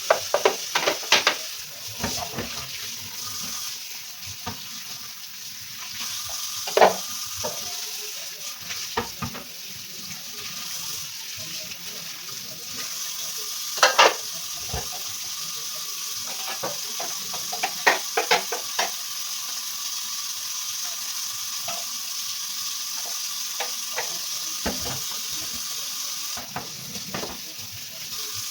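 Water running steadily from a tap, with scattered knocks and clatter of hard items being handled and washed.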